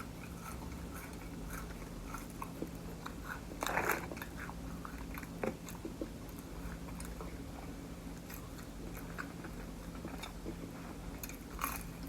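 Close-miked chewing and biting of fast food: soft wet mouth clicks and smacks, with a louder bite about four seconds in and another near the end.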